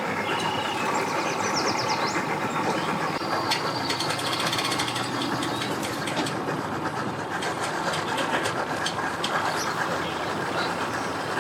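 Boat motors and tow vehicles running steadily together, with a few scattered clicks and faint high chirps over the rumble.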